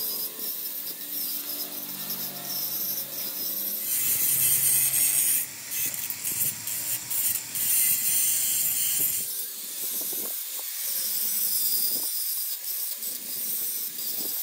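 Handheld angle grinder with an abrasive flap disc grinding down the broken edge of a metal gear: a hissing grind, loudest from about four to nine seconds in, then lighter and uneven as the disc is pressed on and eased off.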